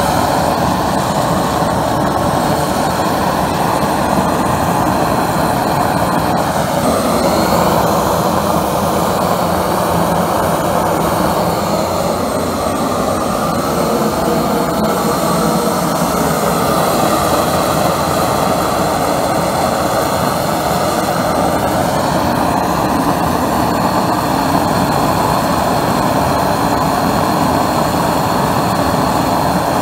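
Homemade air-atomized diesel burner, driven by a small air compressor, firing with a loud, steady rushing noise. Its pitch shifts a few times.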